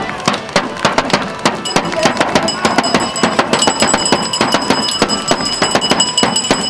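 Field drum beaten in a quick, uneven rhythm of sharp strikes, over the voices of a crowd.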